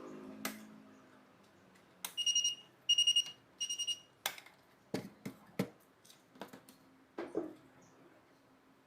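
Digital alarm clock beeping: three quick bursts of rapid, high-pitched beeps, followed by several sharp clicks and knocks.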